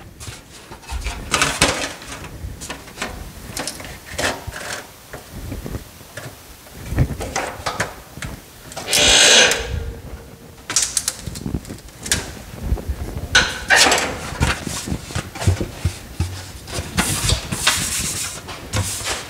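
Thin aluminum sheet being bent in a hand-operated sheet-metal brake and handled: irregular clanks, knocks and rattles, with a longer, louder burst of noise about nine seconds in.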